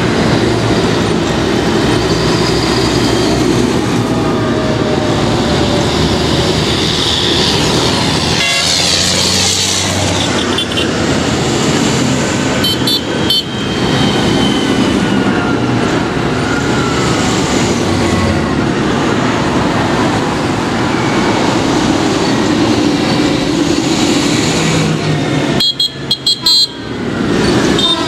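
A line of large modern tractors, among them a John Deere, driving past one after another, with diesel engines running and tyres on the road. Short horn toots come about halfway through and again near the end.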